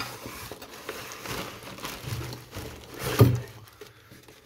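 Cardboard box flaps being pulled open and plastic wrapping crinkling as hands rummage inside the box, with one louder bump a little after three seconds in.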